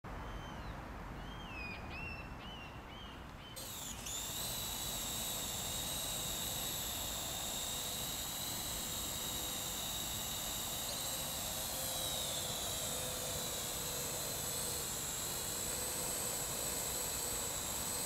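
Birds chirp briefly. Then, about three and a half seconds in, the steady high whine of a Parrot AR.Drone 2.0 quadcopter's four electric motors starts suddenly and runs on, its pitch dipping slightly about halfway through.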